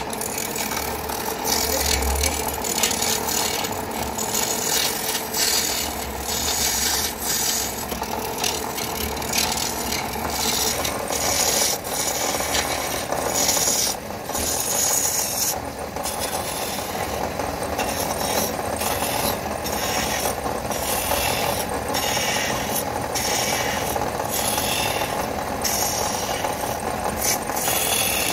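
Hand chisel cutting into a wooden blank spinning on a wood lathe: a scraping hiss of shavings that comes and goes in strokes of a second or two, over a steady hum.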